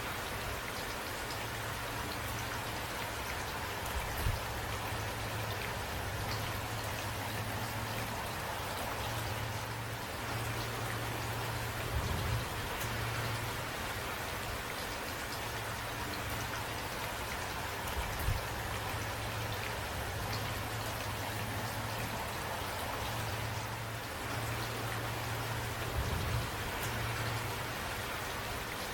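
Steady rain falling: an even hiss of drops, with a few brief low thumps about every eight seconds.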